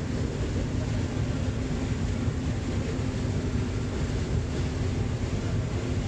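Combine harvester running steadily while harvesting corn, heard from inside the cab: a steady engine and machinery drone with a constant low hum.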